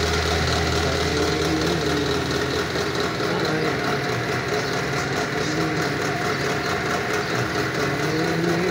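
A steady mechanical hum, with a voice in the background holding long, wavering sung notes of a devotional naat.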